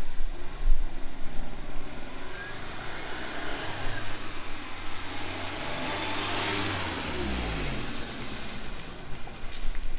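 Daihatsu Mira TR-XX Avanzato R's JB-JL turbocharged 659 cc four-cylinder engine as the car drives by on a test run. The engine note holds steady through the middle, then its pitch falls away about seven seconds in as the car eases off and moves away.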